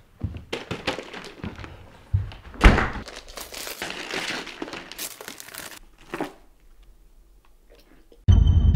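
A cardboard box being handled and torn open, with a thunk about two and a half seconds in, then several seconds of paper wrapping crinkling and tearing as it is pulled out. Music starts suddenly near the end.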